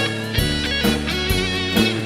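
Background music with electric guitar and drums and a steady beat.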